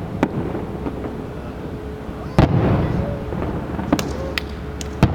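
Fireworks exploding: a loud bang about two and a half seconds in, a few smaller cracks around four seconds, and another loud bang at the end.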